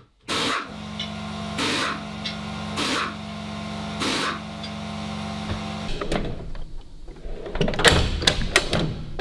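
An electric motor hums steadily for about five seconds, with a short rasping noise roughly once a second. Then metal tool-chest drawers slide open and tools clatter, loudest near the end.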